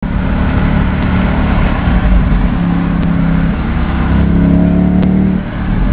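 Mercedes-Benz SL AMG engine and exhaust running loudly with a deep, steady note. Its pitch climbs slightly about four seconds in, then the sound dips briefly near the end.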